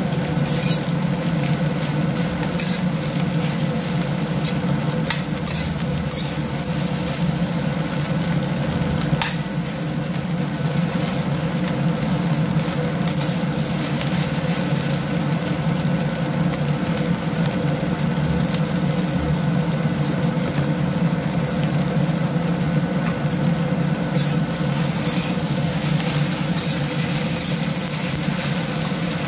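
Rice being stir-fried in a wok: a steady sizzle with the metal spatula scraping and tossing the rice against the pan, and now and then a sharp click of the spatula on the wok. A steady low hum runs underneath.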